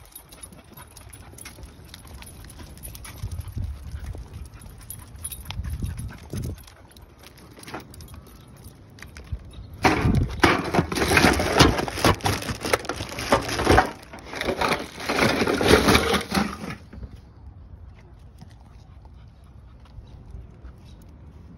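Plastic trash bag crinkling and rustling as litter is pushed down into a public trash can. The crackling starts about halfway through and lasts about seven seconds, the loudest sound here.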